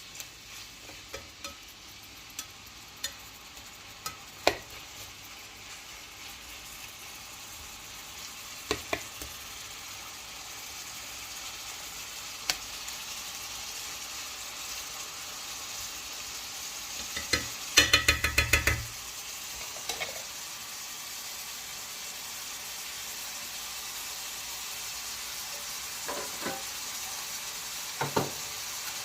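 Food frying in a pot, a steady sizzle that grows slowly louder, with a spoon stirring and knocking against the pot now and then. A fast run of about ten clattering knocks a little past halfway is the loudest moment.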